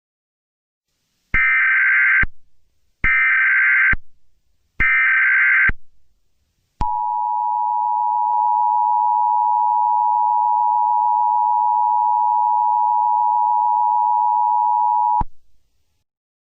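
Emergency Alert System header: three short bursts of warbling data tones, about a second each, then a click and the two-tone attention signal, a steady tone held for about eight seconds that cuts off sharply. It marks the start of an emergency alert broadcast.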